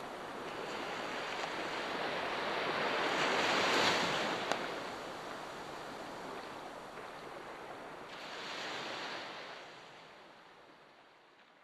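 Sea waves washing onto the shore: one surge builds to a peak about four seconds in and a smaller one follows near nine seconds, then the sound fades away. One sharp crack sounds just after the first peak.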